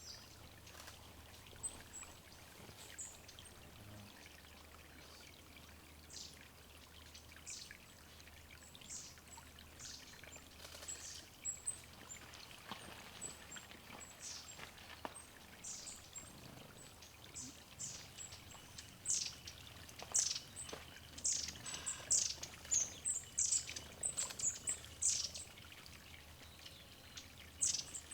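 Many short, high, thin calls and chips of small forest songbirds, growing busier and louder in the second half, over a steady trickle of water at a woodland water spot.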